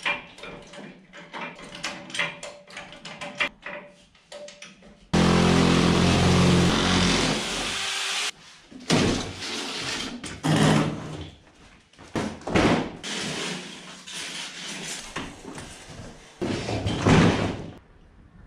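Knocks and clatter of steel and wood, with long scraping stretches, one starting about five seconds in and lasting about three seconds and another near the end, as a plywood pallet and lift parts are shifted and dragged across a tile floor while a trolley floor jack raises the scissor lift.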